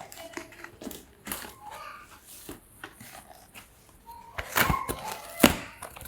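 Hands handling and opening an unboxing package, a string of small clicks and knocks, with a few sharper, louder knocks between about four and a half and five and a half seconds in.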